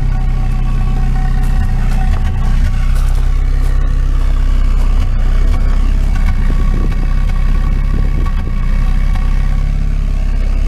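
Mazda Miata inline-four engine idling loudly and steadily through a makeshift exhaust with a clamped-on, mismatched tip pipe. It runs rough, which the owner puts down to the car having seen little use.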